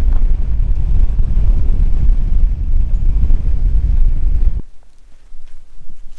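Loud, steady low rumble of a vehicle driving, with wind noise, which cuts off abruptly about four and a half seconds in. A much quieter stretch with a few light clicks follows.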